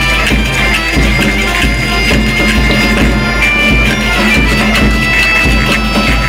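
Galician folk band playing a tune: gaita (Galician bagpipe) melody over its steady drone, with accordion, snare drum and a bass drum beating regularly underneath.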